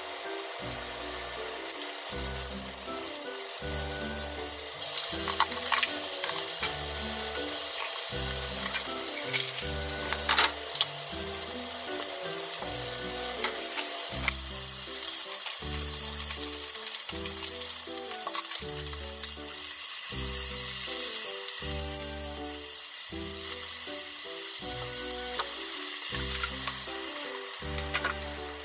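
Thin-sliced pork sizzling in an oiled frying pan as it fries, a steady hiss with a few sharp clicks now and then.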